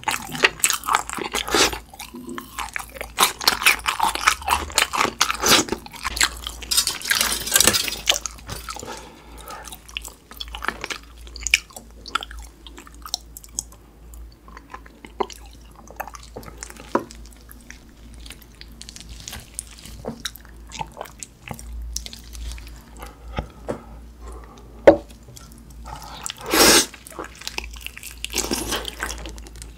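Close-miked eating sounds: crunchy chewing for the first several seconds, then quieter wet mouth sounds and scattered clicks, and a loud crunching bite into a sauced fried chicken drumstick near the end.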